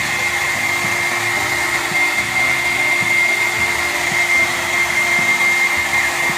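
Havells handheld hair dryer running steadily, a rush of air with a thin steady whine over it.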